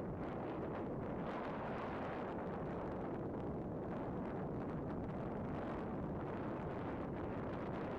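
Steady wind noise buffeting the microphone, a constant low noise with no distinct events.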